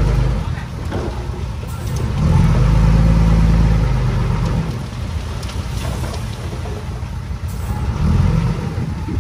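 Diesel engine of heavy earthmoving equipment running, its note swelling under load about two seconds in and again near the end.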